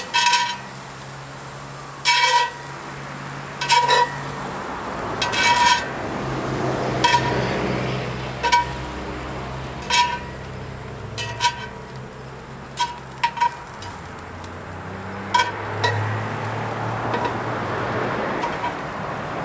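Metal tongs clinking and scraping against a cast-iron camp oven as seared beef strips are lifted out, a ringing clink every second or two, over a soft sizzle from the hot pan.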